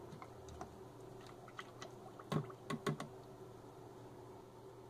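A few faint, light clicks and taps, bunched between about one and a half and three seconds in, as granulated sugar is tipped from a cup into a plastic measuring jug of hot water.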